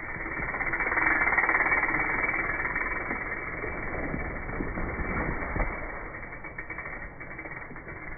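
Mountain bike riding through dry fallen leaves on a dirt berm: tyres crunching and skidding, with a fast rattling from the bike. The sound swells about a second in and eases off, with a single knock near the middle.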